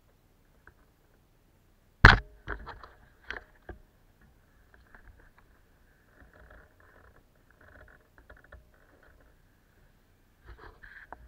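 A sharp knock about two seconds in, followed by a few lighter clicks and faint rattling: handling knocks on the stopped bicycle, carried to the camera through its mount.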